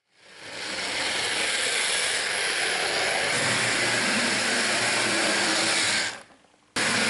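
A Trix Express model locomotive's electric motor and gearing running under power from the controller, a loud whirring rattle. It builds up over the first second, holds steady, cuts out abruptly about six seconds in, and starts again just before the end.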